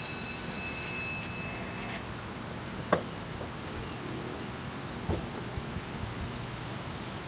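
Steady outdoor background rumble with small birds chirping faintly throughout. A single sharp click about three seconds in, and a few softer knocks about five seconds in.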